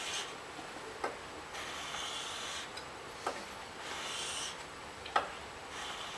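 A steel blade being honed by hand on a wet 4000-grit sharpening stone: slow, hissing scrapes, one every two seconds or so, with a sharp click between strokes.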